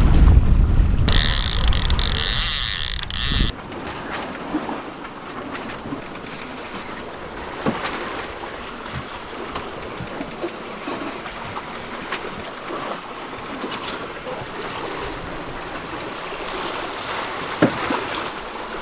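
Wind buffeting the microphone over the rush of water along a sailboat's hull under sail. The wind noise is heavy for about the first three seconds, then drops away to a steadier wash of water with occasional small knocks.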